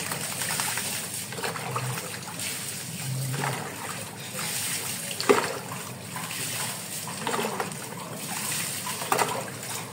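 Water poured from a plastic dipper over a dog's back, splashing and trickling onto a wet floor in several pours. One sharp knock about five seconds in.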